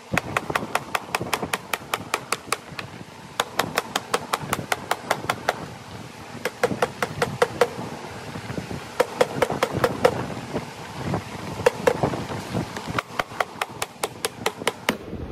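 Blocking hammer striking sheet metal clamped in a hammer form, about five blows a second in runs of a dozen or so with brief pauses: a radius flange being hammered over the form's edge.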